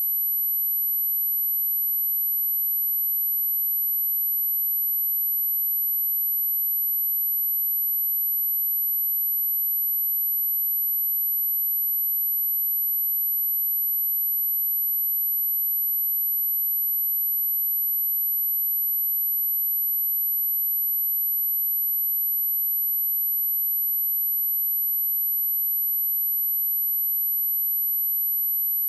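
A single steady, very high-pitched sine-wave test tone at 11818 Hz, held at one unchanging pitch and level.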